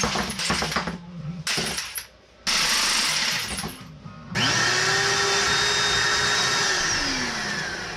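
Power drill driving screws into wood in three runs. The last run, about three seconds long, starts about four seconds in, spins up to a steady whine and winds down near the end.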